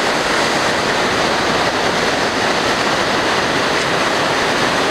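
Parvati River rapids rushing: a steady, loud wash of white water from a fast, strong current.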